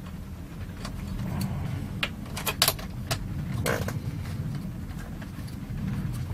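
Small sharp clicks and taps of tools and wires against a metal amplifier chassis during hand rework, about half a dozen between one and four seconds in, over a steady low hum.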